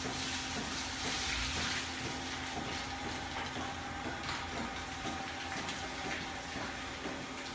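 Steady rush of running or spraying water over a constant machine hum, the rush swelling a little about a second in.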